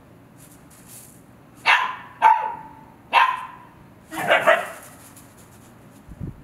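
Siberian husky barking: three single barks, then a quick double bark.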